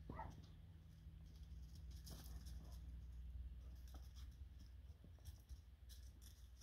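Faint scratching and rustling of Great Dane puppies' paws on gravel and through shrubs, over a low steady rumble.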